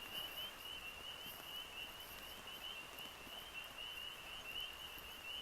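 Faint rain falling, with a steady, rapidly pulsing high-pitched trill from a calling animal running throughout.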